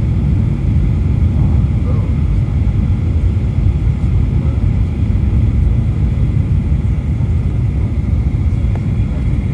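Steady low rumble of engine and airflow noise inside the cabin of a Boeing 737 airliner, with no change in level.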